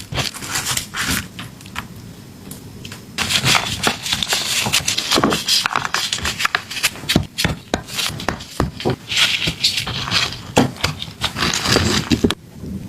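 Kitchen food-preparation handling noise: scraping, crackling and many sharp clicks and knocks, cutting off abruptly near the end.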